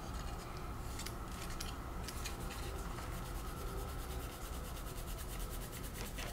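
Hand sanding of a painted plastic model car body with a fine abrasive, in quick short strokes that smooth micro scratches out of the paint.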